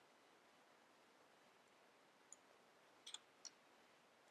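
Near silence: room tone, with a few faint computer clicks from keys or mouse buttons, one about two seconds in and a small cluster about three seconds in.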